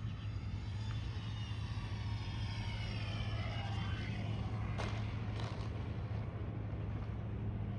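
Radio-controlled P-61 Black Widow model aircraft landing: the whine of its motors and propellers falls steadily in pitch as it throttles back on approach, then two short knocks about five seconds in as it touches down. A steady low hum runs underneath.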